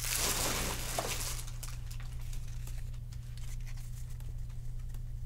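Trading card pack wrapper crinkling as it is torn open, loudest in the first second, then fading to faint ticks and rustles of cards being handled, over a steady low hum.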